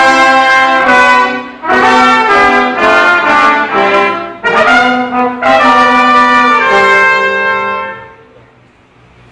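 Brass music: trumpet- and trombone-like tones playing a melody in loud held notes, the phrase ending on a long note that dies away about eight seconds in, leaving only a faint hiss.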